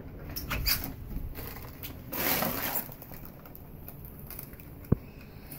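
Crunching and rustling of loose debris, with a few light clicks in the first second, a longer crunching rustle about two seconds in, and one sharp knock near the end.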